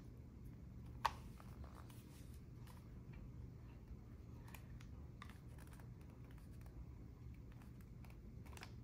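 Faint plastic clicks and light scraping as a smartphone in a silicone case is fitted into a DJI drone remote controller's spring-loaded phone clamp, with one sharp click about a second in. A steady low hum sits underneath.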